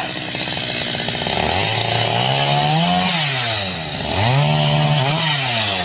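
A small engine running, revving up and dropping back twice in a row.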